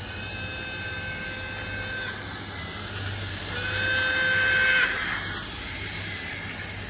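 Sound-equipped model 'Crocodile' electric locomotive sounding its horn twice through its speaker: a blast of about two seconds, then a louder one of just over a second about three and a half seconds in, as it passes. A steady low running hum from the model train lies underneath.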